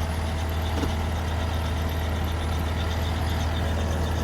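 Vehicle engine running with a steady low hum.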